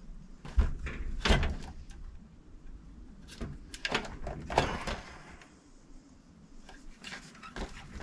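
Sharp clicks, snaps and handling rustle of a wire stripper-crimper tool as a furnace igniter's wire leads are stripped and crimped into butt connectors. The two loudest snaps come within the first second and a half, with a cluster of clicks around the middle.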